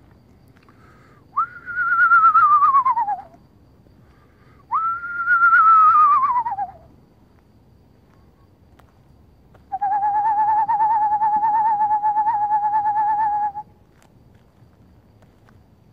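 Person's whistled owl-call imitation: two wavering whinnies that fall in pitch, then a long, steady, wavering trill on one pitch.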